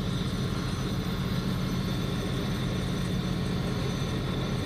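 Angle grinder running steadily with a constant motor hum, cleaning slag off a stick-weld root pass.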